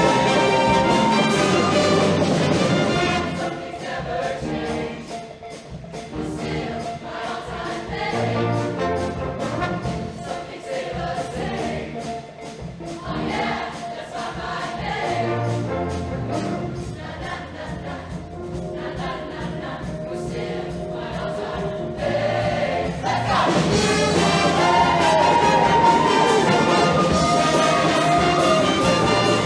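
Show choir singing with its band, brass prominent. After a loud opening it drops to a softer passage over a fast ticking beat, then swells back to full volume a little over twenty seconds in.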